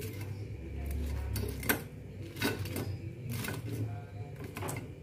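A plate of fried vegetable fritters being handled on a stovetop: a few sharp clicks and knocks over a low steady hum, the loudest about one and a half seconds in.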